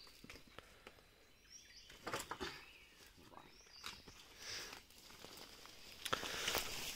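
Sawn wooden planks knocking together a few times as they are handled and lifted, then, near the end, a louder rustle and crunch of dry leaves and undergrowth as they are carried off.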